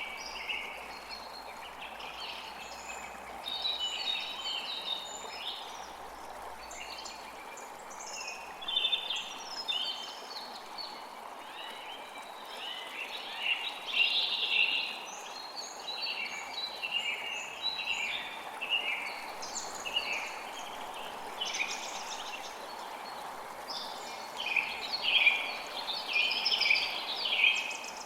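Several forest birds chirping and trilling in overlapping, varied calls over the steady rush of a flowing creek.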